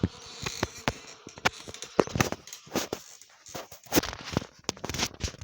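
Irregular sharp clicks and crackles, several a second and uneven in strength, over a faint hiss.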